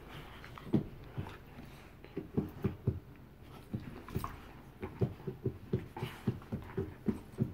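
Two bull terriers play-fighting on carpet: an irregular string of short, low thuds and scuffles from their paws and bodies, several a second.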